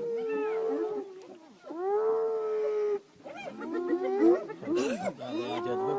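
Wild animals calling. Two long, held, pitched calls of about a second each come first, then from about three seconds in several shorter calls overlap one another.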